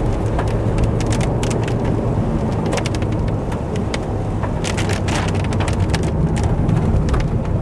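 Vauxhall Corsa driving on a wet road: a steady engine and tyre rumble, with irregular sharp ticks of raindrops hitting the camera, thickest in the middle stretch.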